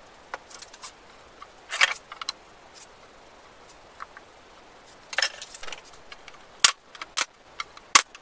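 Scattered sharp clicks and knocks of hand work in a wood shop, with two short clattering rattles, one about two seconds in and one about five seconds in, and a run of sharper clicks near the end.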